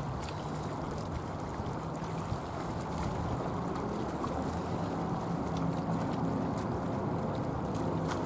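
Jet airliner engines running with a steady low rumble and a faint low hum, growing slightly louder.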